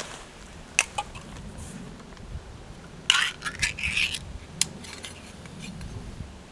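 Metal camping cookware clinking and scraping as food is put into a pan: two sharp clinks about a second in, then a quick run of clatters a little after halfway.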